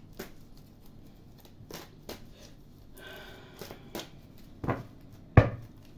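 Tarot cards being handled: scattered light clicks and soft rustling, with one sharper knock about five and a half seconds in as a card or the deck meets the table.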